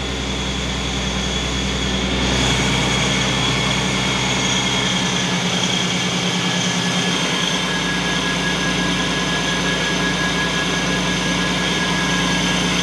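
Supercharged Infiniti Q50's VQ37VHR 3.7-litre V6 idling steadily on its first run after the supercharger install, while the cooling system is being bled.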